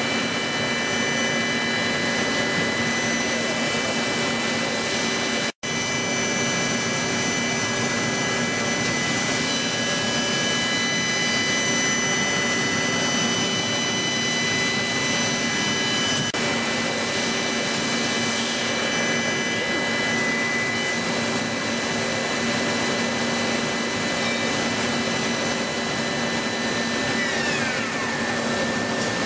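CNC machine tool running at a steady speed, with a whine of several steady tones over a rushing noise. There is a brief cut-out about five seconds in. Near the end the tones fall in pitch as the spindle slows down.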